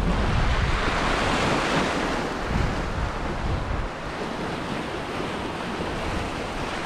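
Sea surf washing against a boulder shore, with wind buffeting the microphone. The wash swells about a second in and eases off after about four seconds.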